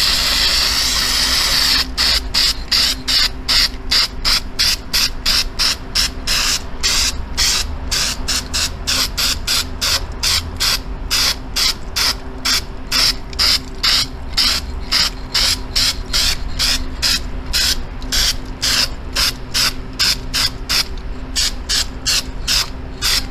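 Aerosol can of CRC gasket remover hissing as it is sprayed onto an aluminum cylinder head: one steady spray for about two seconds, then a long run of short spurts at about three a second to build up a thick coating.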